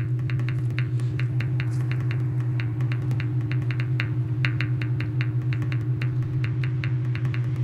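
Ambient soundtrack: a steady low drone with fast, even ticking clicks over it, about five a second.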